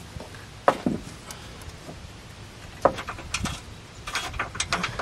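Metal knocks and clinks as suspension parts are handled at the front CV axle and steering knuckle. There is a sharp knock about two-thirds of a second in, two more around three seconds, and a quick rattle of small clicks near the end.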